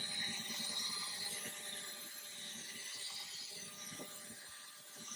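Handheld electric power polisher buffing toothpaste into a plastic car headlight lens: a steady motor whine over the hiss of the pad on the lens.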